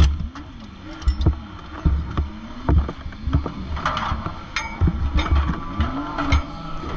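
Knocks, bumps and rattles of a driver climbing out of a dirt-track race car's cockpit and swinging open its metal side door panel. Under them, an engine runs nearby, its pitch rising and falling again and again.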